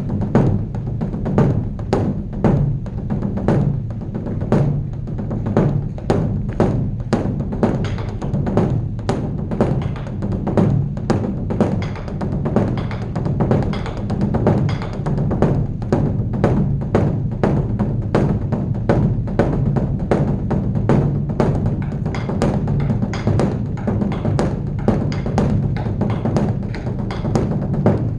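Beopgo, the large Korean Buddhist dharma drum, beaten with wooden sticks in a continuous, fast-changing rhythm of about two strokes a second. The drum's low resonance rings on between the strokes.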